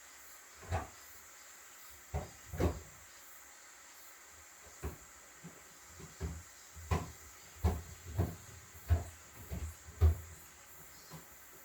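A series of irregular dull knocks and thumps, a few in the first seconds and coming faster in the second half, the loudest one near the end.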